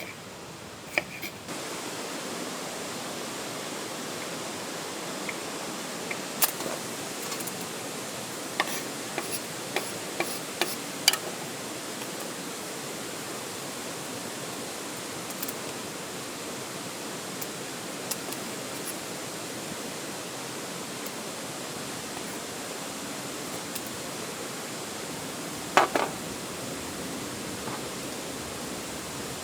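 Bone-in tomahawk steak sizzling over a campfire: a steady hiss that starts abruptly about a second and a half in, with scattered sharp pops and crackles.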